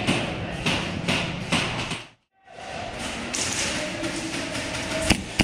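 Thuds and taps of footsteps and gear as a player moves through an airsoft field. The sound cuts out briefly about two seconds in, and a single sharp crack of an airsoft gas pistol shot comes near the end.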